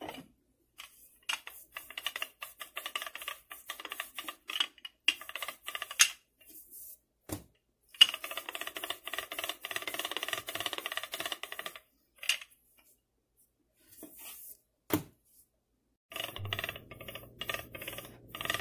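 Wooden rolling pin rolling out pie-crust dough on a countertop, making a rapid clicking rattle in three runs of a few seconds each, with a few single knocks in between.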